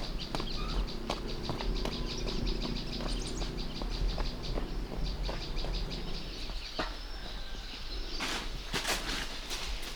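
Fast, even high-pitched chirping with scattered light clicks; the chirping stops about two-thirds of the way through, and a couple of louder rustles follow near the end.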